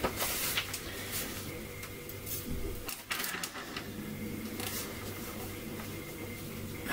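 Quiet handling sounds from things being moved on a table: scattered soft clicks and rustles at irregular moments, over a steady low hum.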